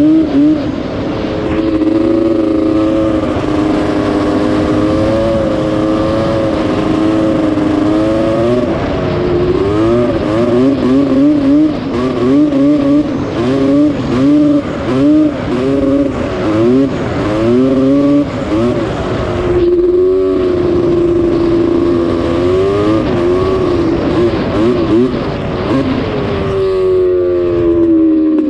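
Snowmobile engine running under way, its pitch rising and falling with the throttle: quick up-and-down rev changes through the middle, a steadier stretch after about twenty seconds, and the revs dropping near the end as it slows.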